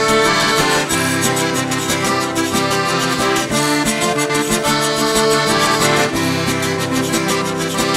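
Cajun zydeco band playing an instrumental passage: button accordion carrying the melody over a steady, even rhythm of rubboard (frottoir) scraping and strummed acoustic guitar.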